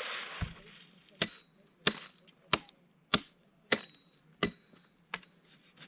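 Hatchet chopping into raw agave hearts (piñas) for bacanora: about eight steady blows, one every two-thirds of a second or so, each a sharp chop with a brief faint ring after it.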